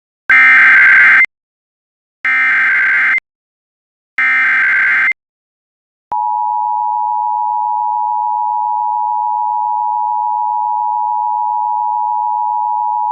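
Emergency Alert System tones on an FM radio broadcast. First come three SAME digital header data bursts, each about a second long with about a second between them. About six seconds in, the steady two-tone attention signal (853 and 960 Hz together) starts and holds. Together these signal an EAS tornado warning activation.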